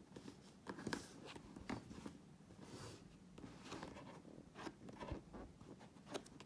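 Faint, short scratching strokes of an X-Acto knife blade drawn along a plastic ruler, scoring a cut line into a paper notebook without cutting through.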